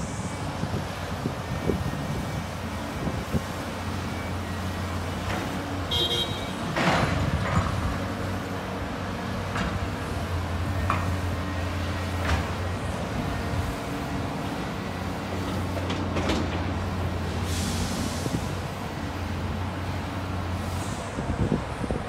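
Diesel excavator engines running with a steady low drone, with scattered knocks and clanks as a tracked excavator swings its bucket and loads dirt into a dump truck, and a brief hiss about two-thirds of the way through.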